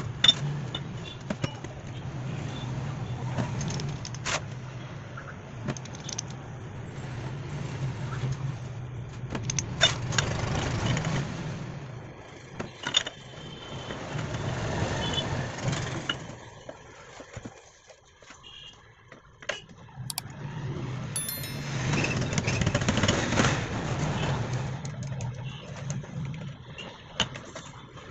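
Metal parts of a Tata Super Ace starter motor (armature, drive lever and housing) clicking and clinking as they are handled and fitted together, over a steady low mechanical hum that drops away briefly about eighteen seconds in.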